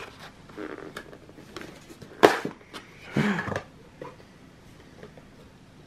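Cardboard packaging handled by hand: light clicks and rustles of flaps and inserts, with a sharp snap about two seconds in and a longer squeaky scrape of a tray sliding out of its sleeve about a second later.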